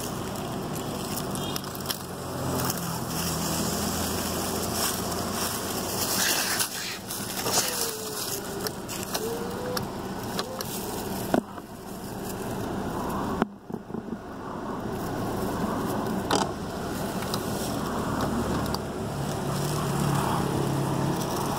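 Steady hum of a car engine idling at the roadside with road noise, a few sharp clicks, and a short squeal that rises and falls about a third of the way in.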